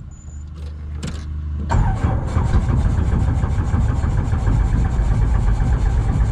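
Robinson R22 Beta II's Lycoming four-cylinder piston engine being turned over by the starter, engaging about two seconds in and cranking with an even, fast rhythm without catching, a sign that it needs more priming.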